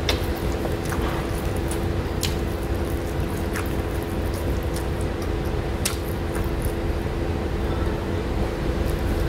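A steady low background hum with a constant tone underneath, broken by a few short sharp clicks of eating by hand: chewing and mouth smacks on rice and fish.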